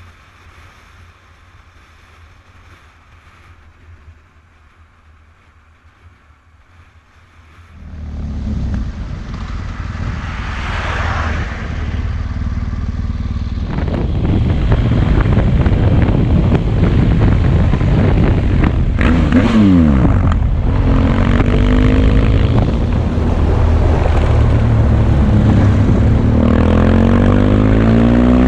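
Onboard sound of a BMW adventure motorcycle riding in traffic: engine and wind rush. It is faint for about the first eight seconds, then grows loud, and from about two-thirds of the way in the engine pitch rises and falls as the rider changes speed.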